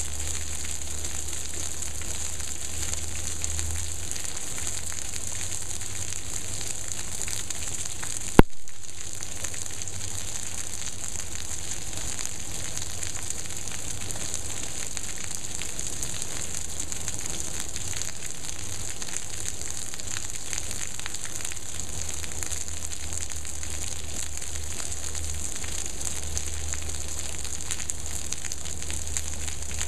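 Heavy monsoon rain falling on a backyard swimming pool and patio: a steady, dense hiss of drops. A single sharp knock sounds about eight seconds in.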